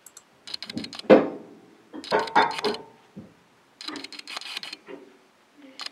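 Metal clanking and rattling of a railway screw coupling and its hoses being connected by hand between a locomotive and a coach. It comes in four short bursts of rattling clicks, the sharpest clank about a second in.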